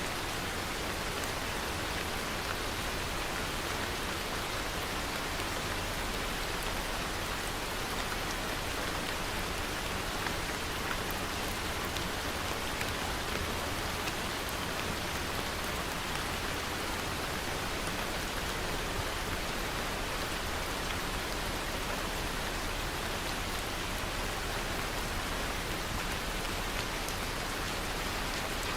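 Steady rain falling, an even hiss of many drops with faint scattered patters.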